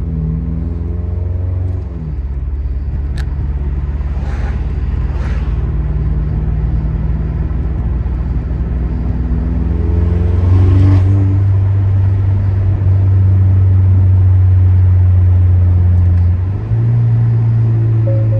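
The turbocharged 2.0-litre four-cylinder of a 2022 Acura TLX, with a straight-pipe downpipe and the muffler deleted, droning steadily while the car is driven. The drone gets louder about ten seconds in and dips briefly near the end.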